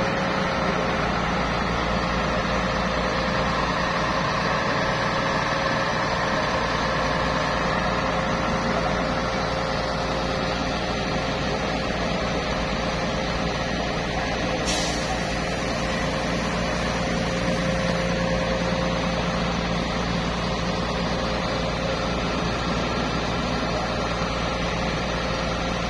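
Concrete boom pump truck's diesel engine running steadily, a constant drone with a held whine over it, and one brief click about fifteen seconds in.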